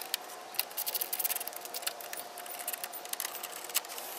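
Ratcheting screwdriver with a Torx 20 bit clicking in quick, uneven runs as it backs out the grille screws.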